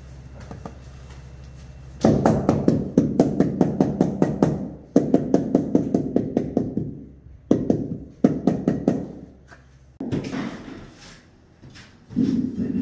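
A mallet tapping tiles down into their adhesive bed, in quick runs of about six blows a second with short pauses between the runs. A low steady hum underlies the first two seconds.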